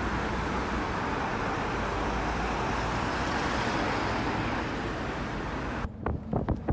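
Steady rushing noise like road traffic. About six seconds in it cuts off abruptly to a quieter background with a few sharp taps.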